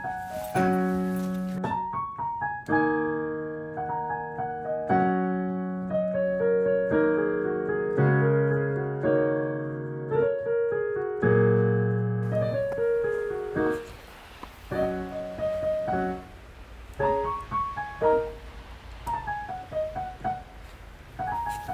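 Solo piano background music: held chords under a melody, fuller and louder at first, then sparser, quieter single notes in the second half.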